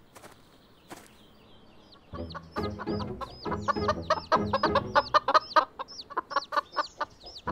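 Cartoon chickens clucking rapidly, mixed with high chick peeps, starting about two seconds in; a few faint taps before.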